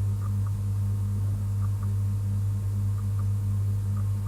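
A steady low hum with a faint pulsing tone above it and a few soft, high blips.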